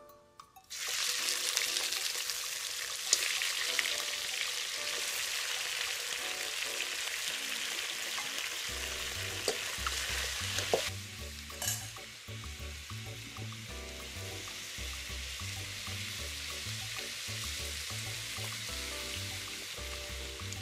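Raw chicken pieces sizzling in hot oil in a wok over a wood fire, the hiss starting suddenly about a second in as they go into the pan. A few sharp clinks of a spoon stirring against the wok.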